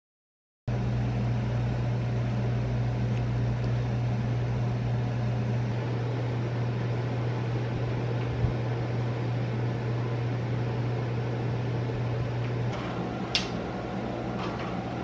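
Steady low hum of an electric fan running in a room. The hum eases slightly near the end, and a few light clicks come as the window blinds are handled.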